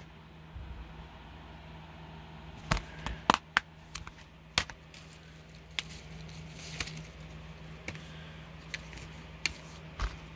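Plastic Blu-ray cases being handled: a scattering of sharp clicks and knocks as a case is shut and the next one picked up, over a steady low hum.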